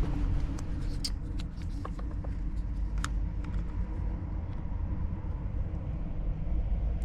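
A few small sharp clicks as the plastic key fob casing is pressed and snapped back together, over a steady low outdoor rumble.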